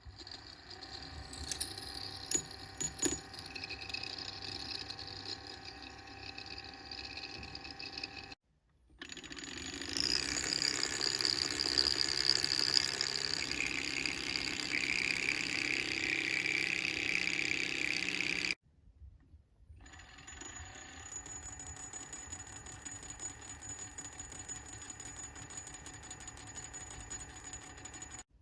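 Magnetic stirrer motor running steadily with a whine of several steady tones, spinning water into a vortex, with a few sharp clicks about two to three seconds in. The sound breaks off twice and restarts, louder after the first break.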